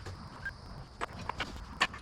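About five light, irregular clicks and knocks of tools and parts being handled during work on a truck.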